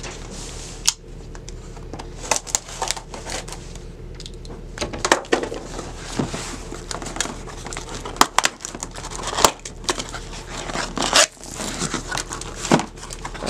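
Cardboard laptop box being handled and opened by hand: irregular scrapes, taps and crinkling of cardboard and packing tape as the box is turned over and its tab torn open.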